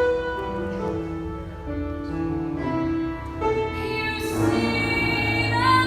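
A female voice singing a slow line of long held notes over musical accompaniment, with a brighter, louder note coming in about four seconds in.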